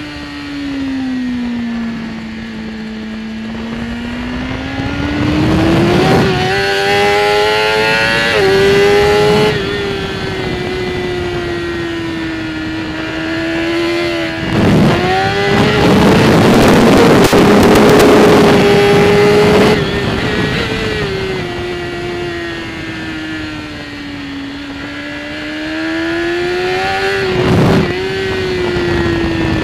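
BMW S1000RR superbike's inline-four engine at racing speed, revs falling into corners and climbing hard out of them with quick gear changes. Heavy wind rush on the microphone is loudest through the fast stretch around the middle.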